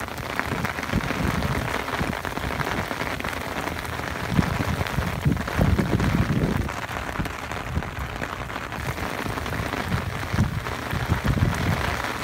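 Steady rain falling hard, a constant hiss with irregular low rumbles that are strongest around the middle.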